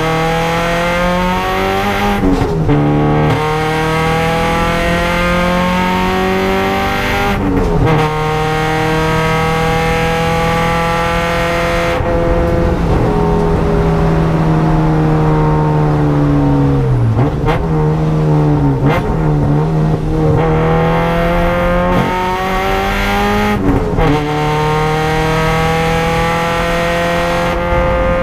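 Honda EG Civic track car's engine heard from inside the cabin under hard driving: the revs climb through the gears with a sharp break at each upshift. Past the middle the driver eases off and the revs fall in a few dips, then the engine pulls up through the gears again.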